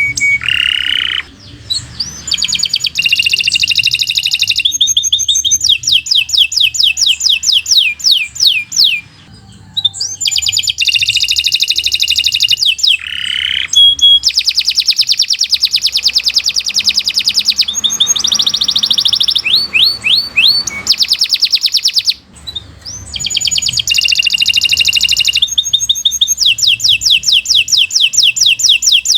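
Domestic canary singing a long, fast song of rapid trills and repeated rolling phrases, with brief pauses twice.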